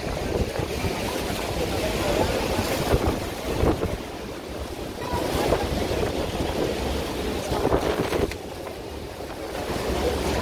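Wind buffeting the phone's microphone in gusts over the steady rush of the American Falls and the churning water around the tour boat.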